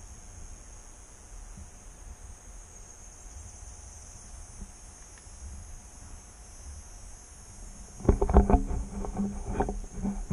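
Steady high-pitched chorus of rainforest insects, a continuous drone. About eight seconds in, a person's voice starts, louder than the insects.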